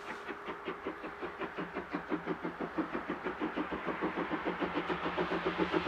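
Steam locomotive 99 1749, a 750 mm narrow-gauge 2-10-2 tank engine, working under full steam. Its exhaust chuffs in a rapid, even beat that grows steadily louder.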